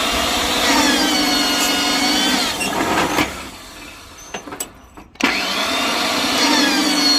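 Electric rebar bending machine's motor whining as it runs a bend, stopping after about three seconds and starting again about five seconds in for a second cycle.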